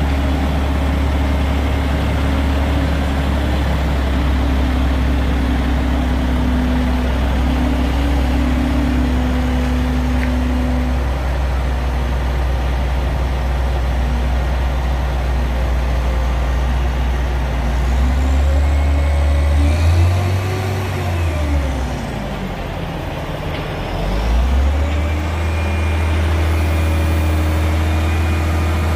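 Heavy diesel engine running steadily at a low drone. About eighteen seconds in its pitch rises, then falls away with a dip in loudness, and a few seconds later it climbs back to its steady note.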